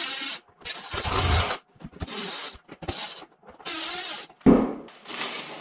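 Cordless drill-driver running in a series of short bursts, driving the clamp screws that lock an in-ceiling speaker into the ceiling. A sharp knock about four and a half seconds in.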